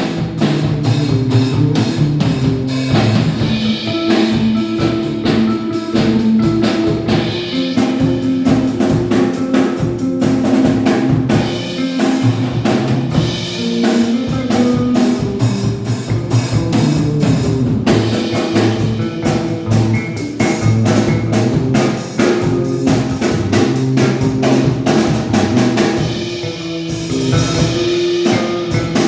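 A band rehearsing a gospel song: a drum kit keeps a steady beat with snare, bass drum and rimshots under bass and sustained keyboard or guitar notes.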